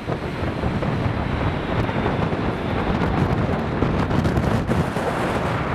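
Gusty wind buffeting the microphone over the steady noise of an Airbus A380's four jet engines on short final, just before touchdown.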